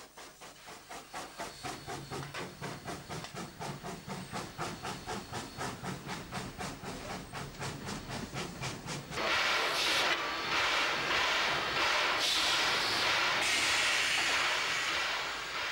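Z27 class 2-6-0 steam locomotive No. 2705 working a train, its exhaust chuffing in a rapid, even beat of about five a second. About nine seconds in, this gives way to loud, steady hissing of steam from the standing engine.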